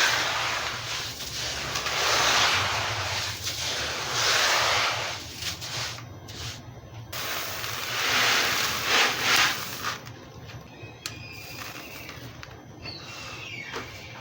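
White concrete pouring into water, a rushing hiss that swells and fades several times, then stops about ten seconds in. After that, birds chirp a few times.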